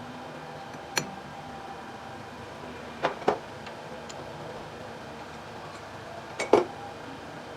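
Metal parts clinking against each other in a workshop: a single clink about a second in, a pair about three seconds in and a louder pair near the end, over a steady background hum.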